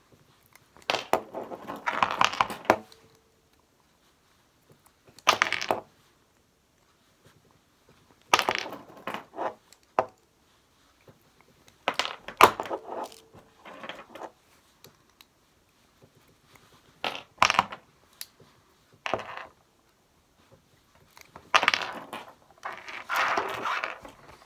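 Small cast-lead jig heads clinking and rattling against each other as they are dropped onto a pile, in about seven short bursts every few seconds.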